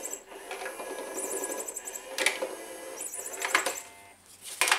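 Small battery-powered motor of a cat toy whirring with a fast, regular mechanical chatter, like a tiny gear drive running. Three sharp plastic clicks cut through it, about two, three and a half, and four and a half seconds in.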